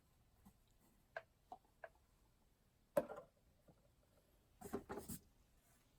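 Faint handling sounds of vinyl figures being picked up and set down: three light ticks a little over a second in, a sharper click about three seconds in, then a short patch of clicking and rustling near the end.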